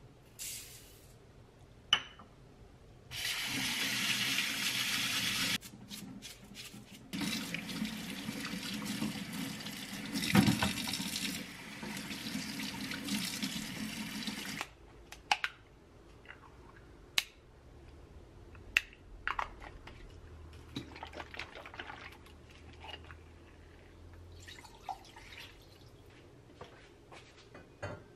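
Kitchen faucet running into a stainless steel sink as rice in a mesh strainer and then a bunch of chives are rinsed by hand. The water runs twice, briefly and then for about seven seconds, and stops sharply. Scattered light clicks and knocks follow.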